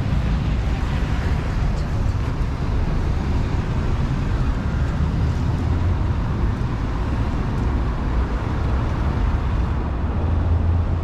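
Street traffic noise from buses and cars on the road beside the sidewalk, steady and continuous, heaviest in the low range.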